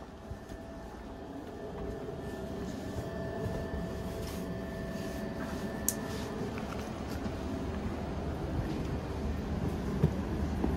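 Steady hum of a standing ČD InterJet (Siemens Viaggio Comfort) passenger coach, with faint steady tones over a low rumble, growing steadily louder as the open exit door gets nearer. A sharp click about six seconds in and another near the end.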